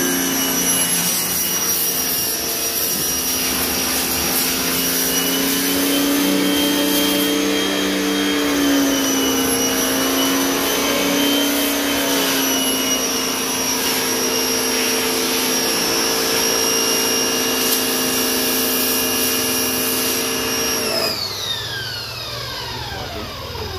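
Electric jet wash (pressure washer) motor running with a steady whine, then switched off near the end, its pitch sliding down as it winds down. Its owners think something is not right with it.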